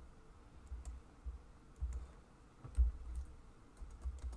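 Sparse computer keyboard key clicks, a few scattered keystrokes, with several dull low thumps.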